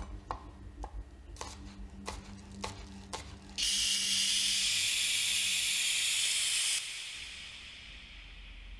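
A few light clicks and knocks, then a loud steady hiss that starts suddenly about three and a half seconds in, lasts about three seconds and stops abruptly.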